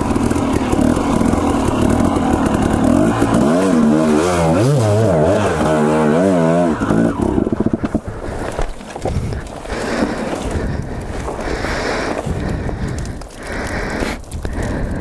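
Husqvarna enduro dirt bike engine running on the throttle, its pitch rising and falling as it is revved up and down about four to seven seconds in. About eight seconds in the engine note falls away into irregular scraping and brush noise as the bike goes over on its side.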